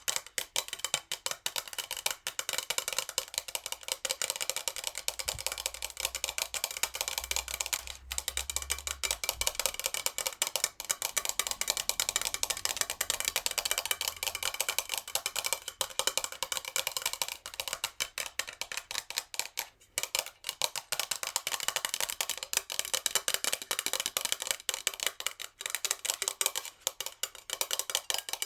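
Natural fingernails tapping very fast on a metal jar: a dense, even stream of sharp clicks with a light metallic ring under them.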